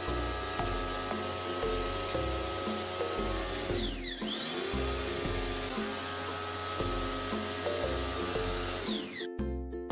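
An electric motor runs steadily with a high whine over background music. About four seconds in its pitch sinks and climbs back, and near the end it cuts off suddenly, leaving only the music.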